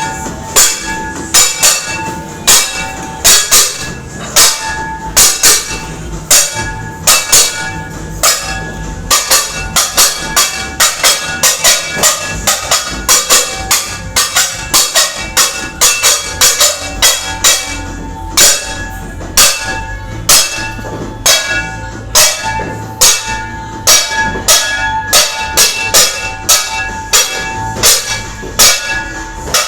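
Metal being struck hard and repeatedly, two or three clangs a second at an uneven rhythm, each leaving a ringing tone: New Year's noisemaking to drive away bad luck.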